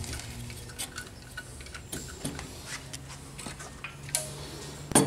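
Irregular light metallic clicks and taps of tools and small parts being handled, over a faint steady low hum.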